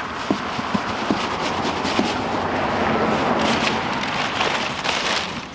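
Cardboard scraping and rubbing in a long, steady stretch as heavy striping-kit parts are slid out of a tall shipping box, with a few light knocks early on the box. The scraping swells in the middle and dies away just before the end.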